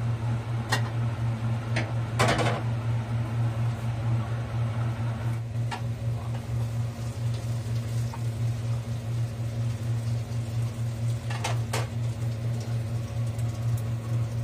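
Electric cooker humming steadily under a pot of beef broth heating toward the boil, with a few light clinks and knocks of a utensil or pot lid.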